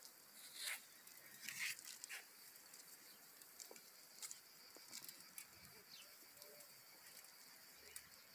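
Near silence: faint outdoor ambience with scattered soft ticks, a few more in the first two seconds.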